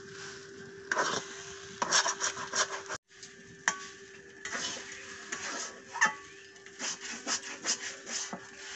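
Metal spatula scraping and knocking against a metal kadai in irregular strokes while stirring thick semolina halwa, over a faint steady hum. The sound drops out briefly about three seconds in.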